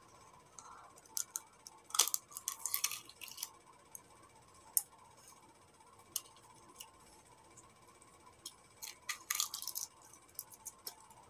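Small crackling clicks in two clusters, about two seconds in and again near the end, with a few single clicks between: the shell of what looks like a hard-boiled egg being cracked and picked off by hand.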